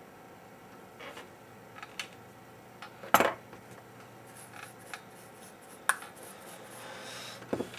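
A few sharp clicks and clinks of small metal tools, tweezers and a soldering iron, being handled and set down; the loudest comes about three seconds in.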